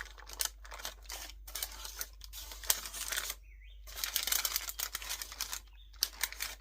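Parchment paper rustling and crinkling, with a spatula scraping, as thick batter is spread and pressed into a paper-lined baking pan. It comes as quick, irregular scratchy rustles, with a brief pause a little past the middle and another near the end.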